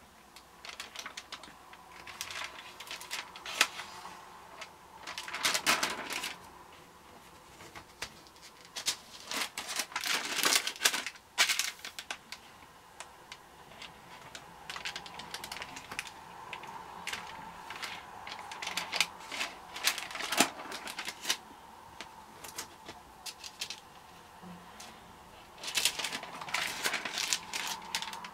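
Stamp stockbook pages being handled and turned: dry rustling and sharp clicking of the stiff pages and their clear interleaving sheets, coming in several bursts with scattered clicks between.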